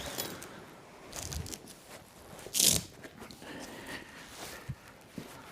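Upholstery fabric rustling and scraping as a chair's loose cover and calico are handled and pulled at, in irregular bursts with a sharper one about two and a half seconds in.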